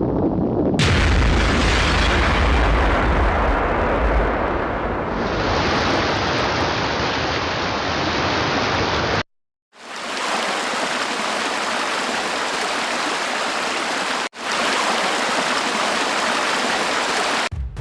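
Heavy rushing water flooding a Lego model, heard as a loud steady roar of water over several edited shots. It has a strong low rumble for the first nine seconds or so, cuts out suddenly, then returns as a thinner, steady rush with a brief break near the end.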